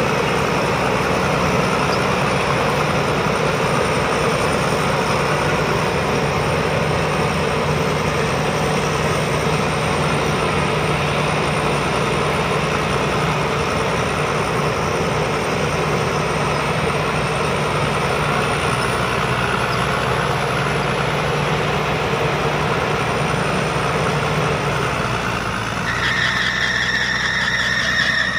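Rice combine harvester's diesel engine running steadily. Near the end a rapid pulsing high-pitched sound joins in.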